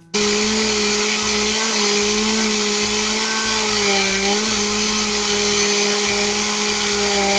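Countertop blender motor switched on and running at full speed, blending fruit and milk into a smoothie: a steady loud whirring hum whose pitch dips briefly about four seconds in.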